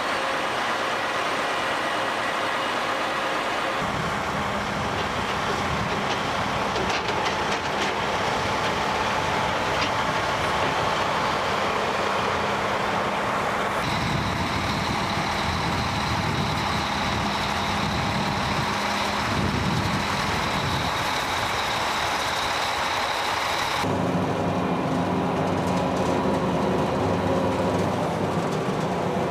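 Large airfield snow-removal machines, snow blowers and runway brooms, running under load: a heavy engine drone under a dense rush of noise. The sound shifts abruptly three times as it jumps between different machines.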